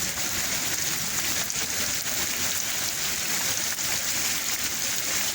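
Steady rain falling and spattering on hard surfaces, an even hiss.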